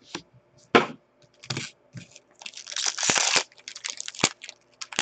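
A trading-card pack wrapper being torn open and crinkled, in a series of short crackles with one longer tear about halfway through, and the cards shuffled in the hands.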